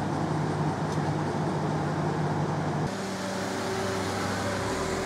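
JR Kyushu KiHa 200 series diesel railcar idling with a steady low hum. About three seconds in, this gives way to street sound with a car driving past close by.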